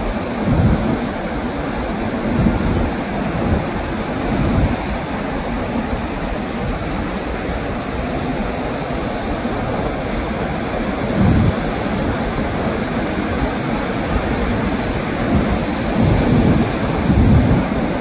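Ocean surf washing over the tide-pool rocks, a steady rush, with gusts of wind buffeting the microphone now and then.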